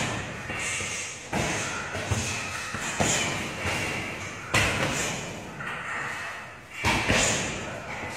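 A heavy punching bag being struck hard, four heavy thuds spaced roughly a second and a half apart, each echoing in a large hall.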